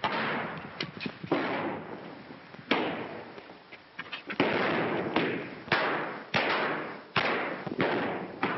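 Gunfire: a dozen or so irregular shots, each a sharp crack followed by a long echoing tail, heard on an old, muffled 1930s film soundtrack.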